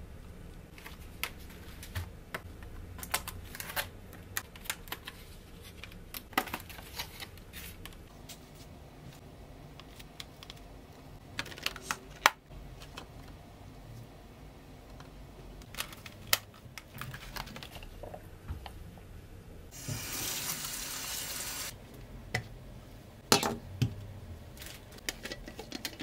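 Plastic clamshell berry containers and kitchen items handled on a countertop: scattered clicks, taps and crackles of thin plastic, with a steady rush of noise lasting under two seconds near the end.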